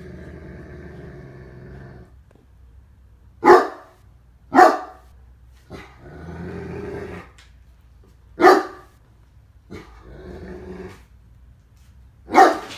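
Great Dane growling low and giving four single loud barks, spaced several seconds apart, with more drawn-out growls between them: wary warning noises at a stuffed toy she is unsure of.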